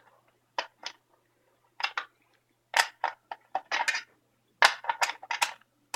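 Sharp metallic clicks and clacks of an Allen wrench being worked in a fire alarm pull station to open it for reset. They come in irregular clusters that get busier about halfway through.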